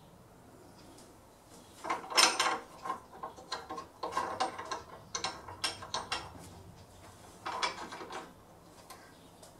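Irregular metal clicks, clacks and scraping as the steel slide and tool post of a homemade ball-turning jig on a wood lathe bed are moved and set by hand. The lathe is not running. The clicks start about two seconds in and stop shortly before the end.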